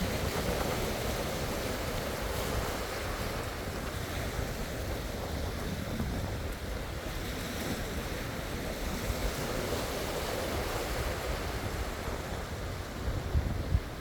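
Sea waves washing in and out in a steady surge, with wind buffeting the microphone, strongest in a few gusts near the end.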